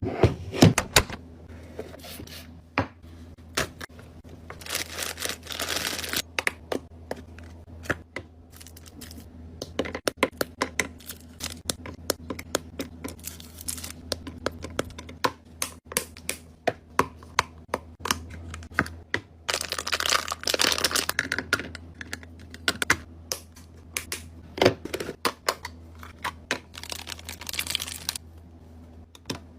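Hands restocking a mini fridge: many sharp clicks and taps of items being handled and set in place, with several spells of plastic packaging crinkling and tearing, over a steady low hum.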